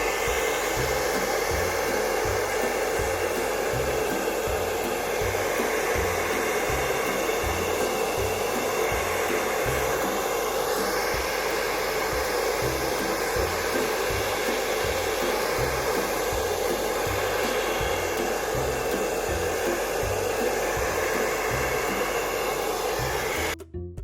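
Handheld hair dryer blowing steadily, cutting off abruptly near the end.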